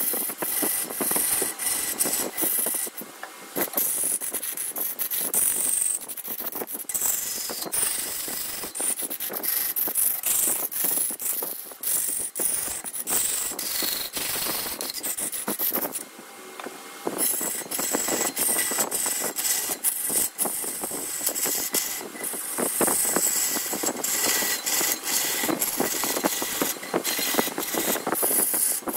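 Wood lathe turning a wooden blank while a hand tool works against the spinning wood: a dense, scratchy rasping full of irregular clicks, easing briefly about three seconds and sixteen seconds in.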